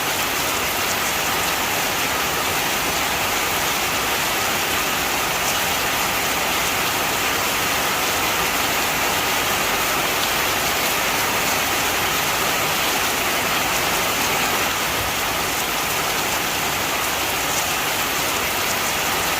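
Heavy rain falling steadily, an even hiss of drops with faint scattered patter on surfaces.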